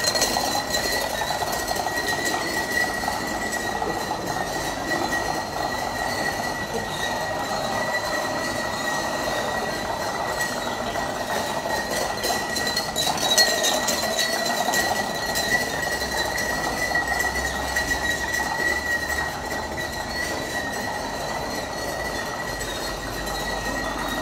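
A long chain of filled glass shot glasses toppling into one another like dominoes: a steady, continuous clatter of clinking glass with a high ringing note over it, and spilled liquid splashing.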